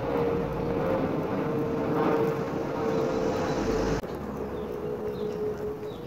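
A steady, engine-like hum over a rushing noise, dropping abruptly in level about four seconds in.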